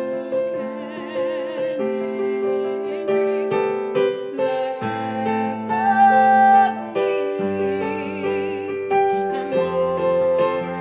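Piano playing a slow accompaniment while a woman sings long held notes with vibrato.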